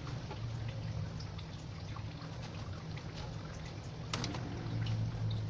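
Fried instant noodles being served into foam takeaway boxes: scattered light taps and scrapes, with one sharper clack about four seconds in, over a steady low hum.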